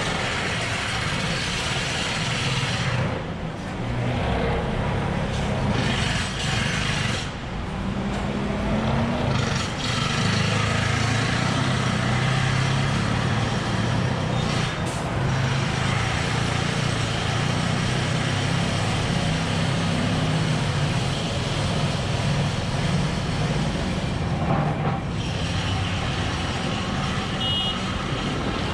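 Busy road traffic: engines of trucks and cars running steadily, one of them rising in pitch as it speeds up about eight seconds in, with a few short high beeps near the end.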